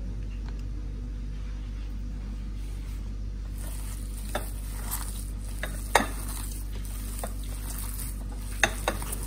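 A hand mixing mashed boiled potato with herbs and spices in a bowl: soft squishing and scraping that begins about three and a half seconds in, with a few sharp clicks against the bowl, the loudest about six seconds in. A steady low hum runs underneath.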